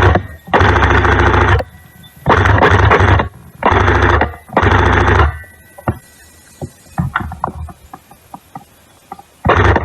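Airsoft electric rifle firing full-auto bursts at close range, its gearbox buzzing through rapid shots. About five bursts of roughly a second each in the first five seconds, then scattered clicks, then another burst near the end.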